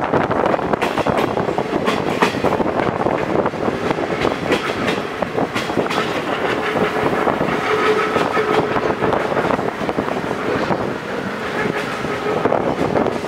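Passenger train carriages running along the track at speed, heard from an open carriage window: wheels clatter over the rails with irregular clicks under a steady rushing noise. A faint steady tone joins about halfway through.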